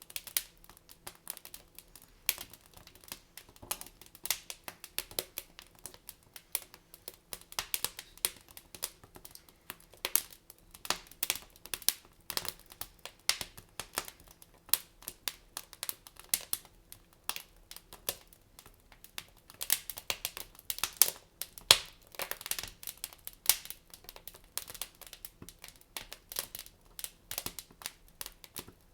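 Wood fire crackling in a fireplace: a constant run of irregular pops and snaps from the burning logs, coming thicker and louder a little past two-thirds of the way through.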